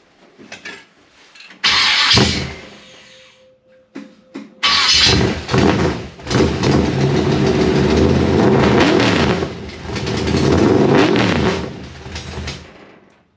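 1955 Chevy Nomad V8 through fender well headers, used stock car mufflers and open 3-inch pipes, being started. It catches briefly and dies about two seconds in, fires again about five seconds in, and runs loud with revving for about eight seconds before shutting off. A clicking is heard that the owner means to cure with new header gaskets.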